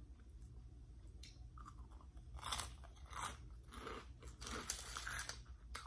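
Mouth crunching and chewing Flamin' Hot Cheetos: a quiet first second, then a run of irregular crisp crunches.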